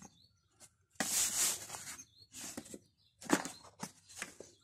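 Small cardboard box handled by hand: scraping and rubbing against the fingers and the wooden tabletop, a longer scrape about a second in followed by several short brushes.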